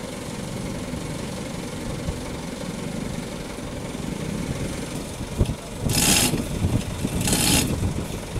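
A truck engine idling steadily. About five seconds in there is a single knock, then two loud bursts of metal chain rattle a little over a second apart, as a hand-pulled chain hoist is hauled to lift a truck bogged in mud.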